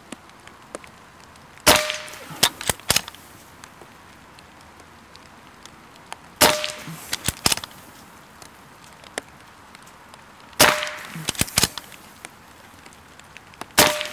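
Hatsan Flash .22 PCP air rifle with integral moderator firing four shots, about four seconds apart. Each shot is a sharp crack followed by a few quieter clicks.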